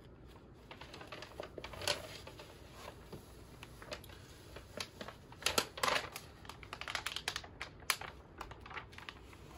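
Irregular light clicks and crinkles of hands handling a diamond painting canvas and its paper cover.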